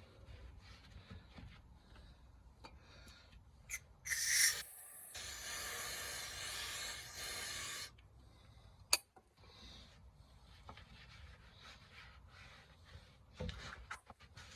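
Aerosol degreaser spray hissing in one continuous burst of about four seconds, loudest as it starts, among faint rubbing and wiping of parts being cleaned. A single sharp click follows about a second after the spray stops.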